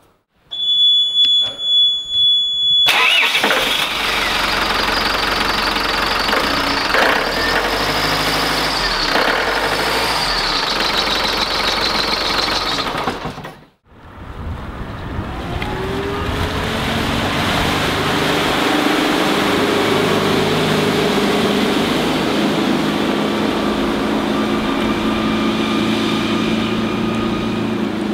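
A steady high beep for about two seconds, then the Volvo Penta KAD32 turbocharged and supercharged diesel sterndrive engine starts and runs. The sound cuts out just before the middle; after that the boat is heard running on open water, with wind on the microphone and its engine note rising once.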